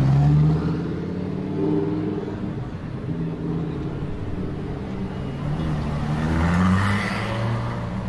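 Lamborghini Huracán's V10 engine revving as the car pulls away, its pitch rising and falling. It is loudest at the start, dips, then climbs to a second loud rev about seven seconds in.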